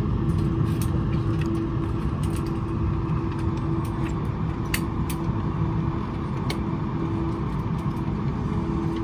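Airliner cabin noise while taxiing after landing: a steady low rumble with a constant hum, and scattered light clicks and creaks from the cabin.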